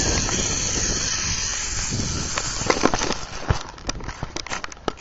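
Zip-line pulley running along a steel cable with a steady rushing hiss that fades out about three seconds in, followed by a run of sharp clicks and knocks from the metal gear at the end of the run.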